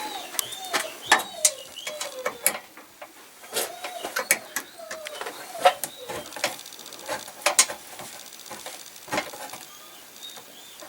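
Scattered sharp clicks and small knocks from handling the fuse and the fuse block of an electric furnace's fuse panel. Over them runs a string of short, high, squeaky whines, each rising then falling, that die away after about seven seconds.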